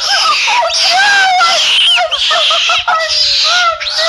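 Baby monkey screeching in repeated shrill bursts about half a second long, with high squeaky rising and falling calls between them.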